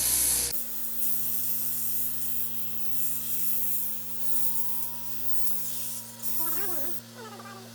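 A buzzing power tool cuts off about half a second in, followed by intermittent rubbing and scraping over a steady low hum.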